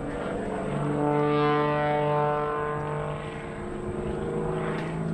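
Pitts Special aerobatic biplane's piston engine and propeller droning as it tumbles and dives, growing louder about a second in and easing a little after about three seconds.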